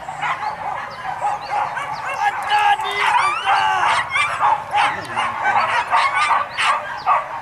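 A pack of hunting dogs barking and yelping together, many calls overlapping without a break.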